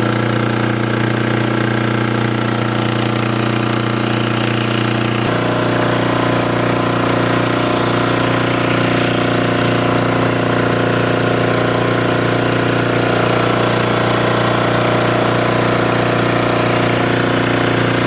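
Diesel generator engine running steadily. Its tone changes abruptly about five seconds in, then holds steady again.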